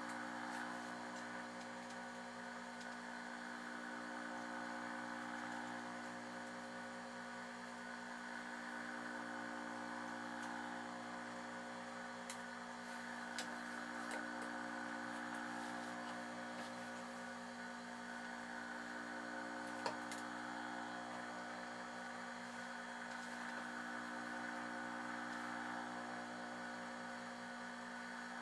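A steady hum of several held tones that slowly swell and fade, with a few faint clicks about halfway through.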